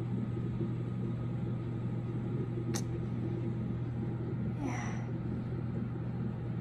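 Fetal heart monitor's Doppler transducer sound, a steady low whooshing rumble picked up from the belly. There is a single sharp click about three seconds in and a brief rustle near five seconds.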